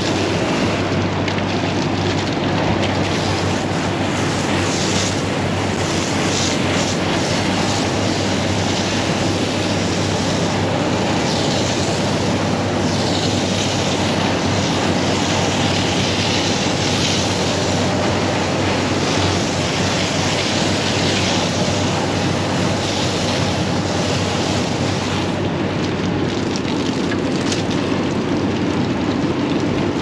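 Garden hose nozzle spraying water through a dirty rooftop air conditioner's condenser coil to wash the dirt out: a steady hiss of spray and splashing water. A steady low hum runs underneath.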